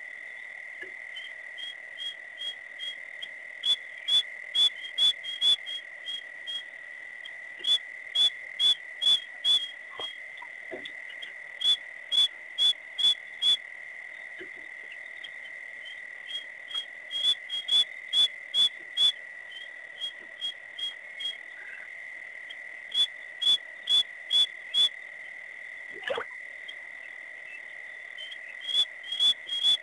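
Night animal calls at a waterhole: a steady high-pitched drone, over which come repeated series of short, sharp, whistle-like pips, about two a second, each series growing louder before it stops.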